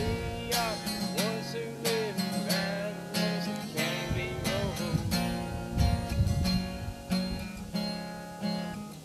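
Acoustic guitar strummed in steady chords, with a voice singing a melody over it during the first few seconds.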